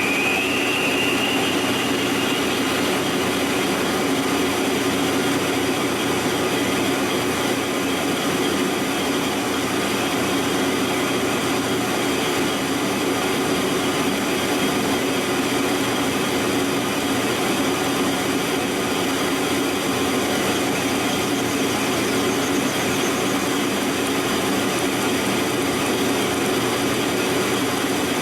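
Monarch engine lathe turning a hardened tractor pinion shaft with a carbide insert: a steady, loud machining noise with a constant hum through it. The interrupted cuts in the hardened steel are wearing the carbide cutters down.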